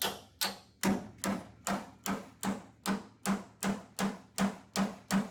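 Steady hammer blows on a steel hinge pin, about two and a half a second, each with a short metallic ring, driving the pin down into a worn door hinge that has been rebuilt with weld and filed to test its fit.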